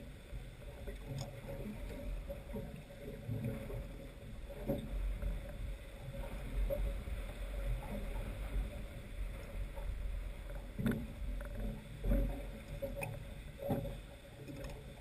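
Water lapping and slapping against a boat's hull, with a steady low rumble of wind on the microphone and a faint steady hum. Several louder slaps stand out, the strongest about two-thirds of the way in.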